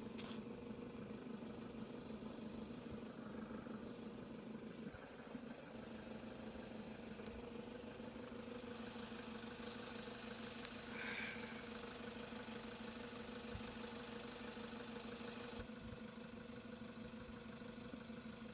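Faint, steady hum of an idling engine, with a brief high chirp about eleven seconds in.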